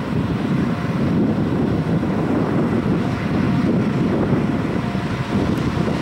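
Wind buffeting the microphone over the low, steady idle of a standing DD51 diesel-hydraulic locomotive, with a faint steady tone from the locomotive coming and going.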